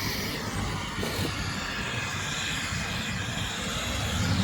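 Water sprayed onto an air conditioner's clogged coil, a steady hissing spray with a low hum underneath that gets louder near the end.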